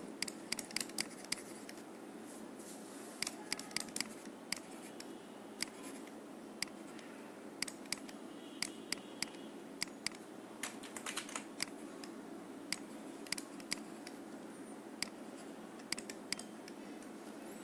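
Irregular sharp clicks and taps of a stylus on a drawing tablet as an equation is handwritten, over a steady low background noise.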